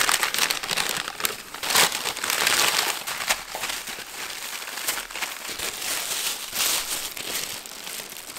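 Thin plastic carrier bags crinkling and rustling continuously as they are handled and pulled off takeaway food containers and a cardboard box, loudest about two seconds in.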